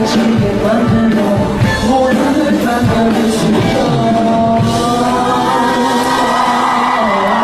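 Live K-pop concert music played loud through the venue's sound system, with singing over a driving beat. From about five seconds in, the beat gives way to long held vocal notes.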